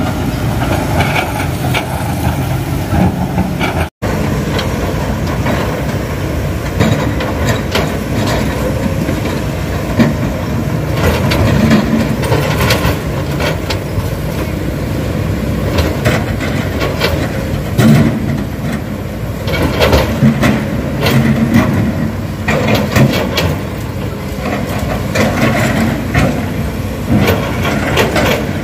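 Crawler excavators' diesel engines running under load, first a Hitachi and then a Kobelco, with frequent clanks and knocks of the steel bucket and tracks against rock. The sound cuts out briefly about four seconds in.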